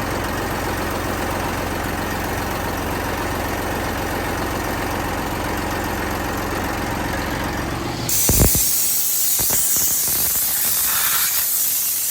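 Lawn mower engine running steadily, which cuts off suddenly about two-thirds of the way through. A thump follows, and then a loud, steady hiss of rushing air.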